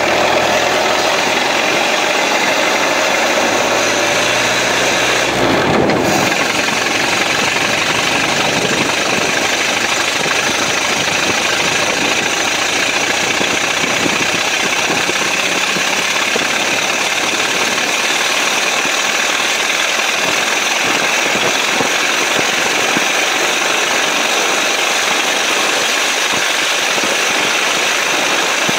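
1926 Ford Model T Speedster running along at an easy cruising speed, heard from its open cockpit over a steady rush of wind and tyres on the wet road.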